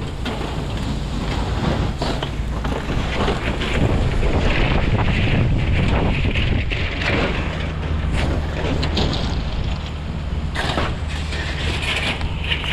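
A steady, low engine drone, with wind buffeting the microphone and scattered knocks and rustles of handling and footsteps.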